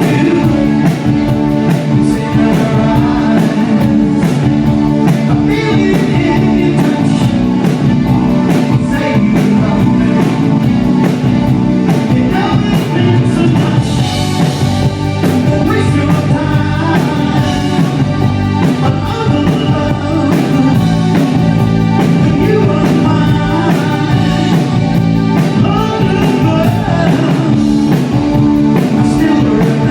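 A new wave band playing live: a singer over electric guitar and a steady drum beat, loud and continuous.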